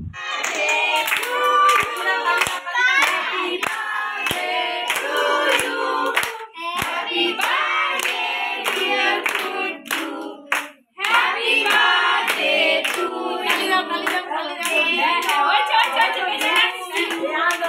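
A group of children singing a birthday song together while clapping their hands in time, with two brief breaks about six and eleven seconds in.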